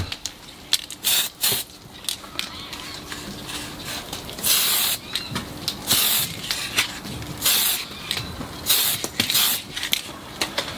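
Aerosol spray-paint can hissing in about six short bursts, with a few sharp clicks in the first two seconds.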